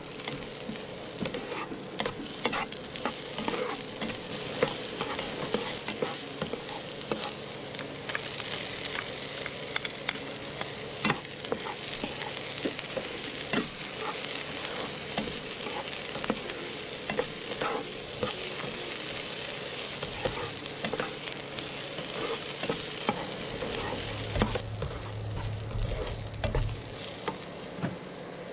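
Minced onion, garlic and ginger sizzling in oil in a nonstick frying pan while a plastic spatula stirs and scrapes them, with frequent clicks of the spatula against the pan. A low rumble for a couple of seconds near the end.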